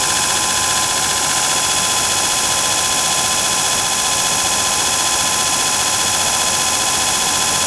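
Antique Allis-Chalmers 10 hp electric motor running steadily at speed, started on 110 volts with a capacitor bank, giving an even hum and whine.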